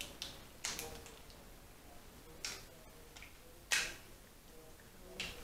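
Eating a seafood boil of lobster claws and crab: a handful of sharp, separate clicks and cracks from shells and mouth, the loudest a little before the end.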